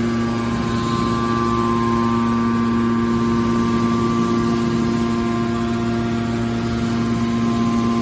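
Hydraulic scrap-metal baler's power unit running with a steady hum: electric motor and pump under constant load.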